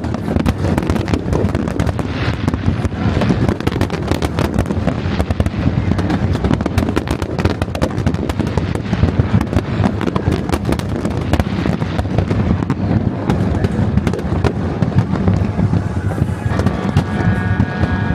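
New Year's Eve fireworks recorded close to the launch site: a dense, continuous barrage of cracks and bangs from rockets and firecrackers over a low rumble of booms. A steady high whistle joins near the end.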